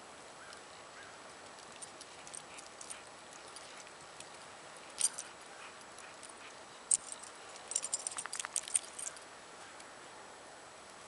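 Two leashed dogs and their walker moving through snow: scattered light, high clicks and jingles, bunched together about eight seconds in, over a steady hiss.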